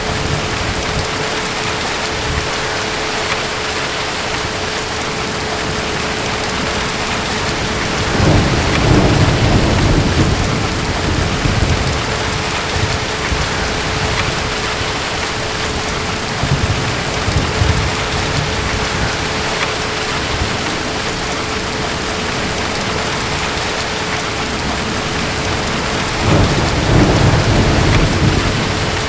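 Steady heavy rain with deep rolls of distant thunder, one about eight seconds in and another near the end.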